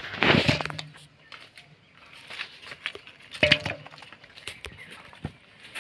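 Live spotted snakeheads landing in a shallow plastic basin of water, each with a sudden slap and splash, just after the start and again about three and a half seconds in. Small knocks and splashes follow as the fish flop against the basin.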